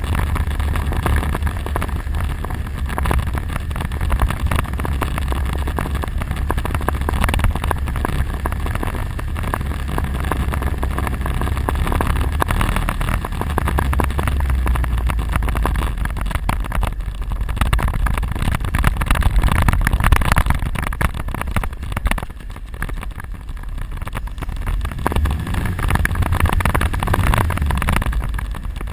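ATV quad engine running steadily while riding, with a deep rumble and a rough, rattly texture throughout; it eases off briefly about two thirds of the way through.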